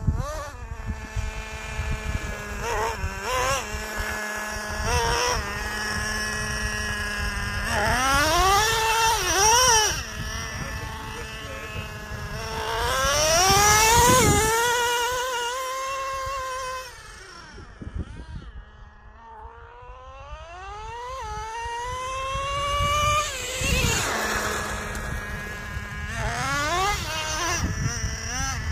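Traxxas Nitro Slayer 1:8 RC truck's small nitro engine revving as it drives: a high, buzzing pitch that climbs and falls again and again. It is loudest about halfway through, eases off to a quieter stretch soon after, then revs up again.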